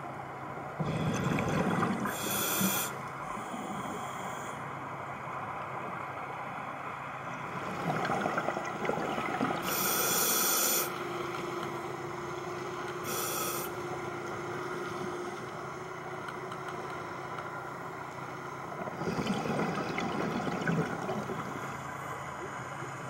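Scuba diver breathing through a regulator underwater: a few sharp hissing inhales and rumbling, bubbling exhales over a steady background hum.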